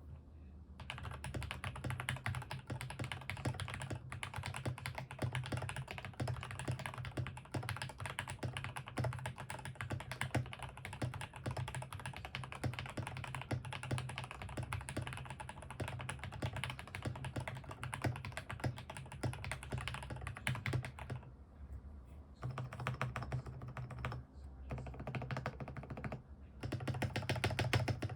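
Fast continuous typing on a KBD67 Lite R3 mechanical keyboard with lubed and filmed JWK Black linear switches, tape-modded, giving a thocky key sound. The typing stops briefly twice in the last third.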